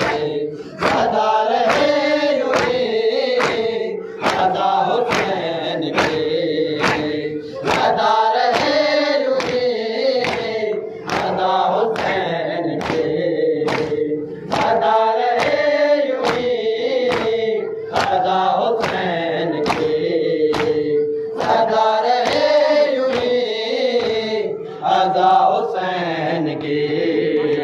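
Men's voices chanting a noha, a Shia lament for Imam Hussain, together in repeated refrain lines. Underneath is a steady beat of sharp slaps: matam, open hands striking the chest in time with the chant.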